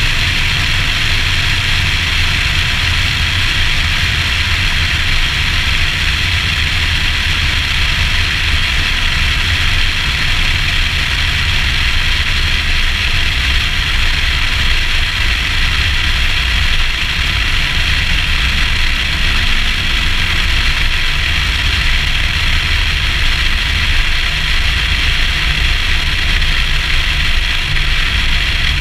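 Nissan Skyline R34 cruising steadily at highway speed, heard from a camera mounted outside the car: a constant low rumble of engine and tyres under a steady rush of wind on the microphone.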